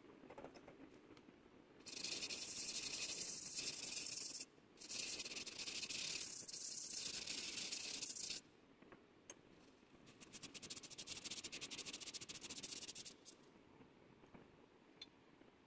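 A flat abrasive tool is scraped against the outside of an old brass bowl to work its surface. It comes as three long, harsh, hissing passes, the last one breaking into rapid short strokes, with faint ticks and handling between them.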